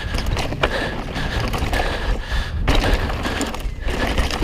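Mountain bike riding fast down a dirt trail: a steady rush of wind and tyre noise with a deep rumble, and scattered knocks and rattles as the bike goes over bumps.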